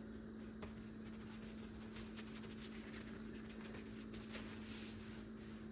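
Faint, quick scraping strokes of a razor over a scalp during a head shave, over a steady low electrical hum.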